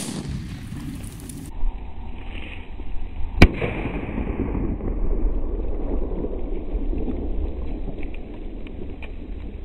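A large firecracker goes off with one sharp, loud bang about three and a half seconds in. A steady low rumble follows it.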